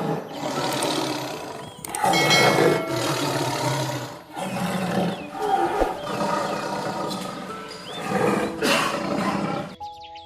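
A large animal roaring, about four long, rough roars in a row with short breaks between them, and faint high chirps behind.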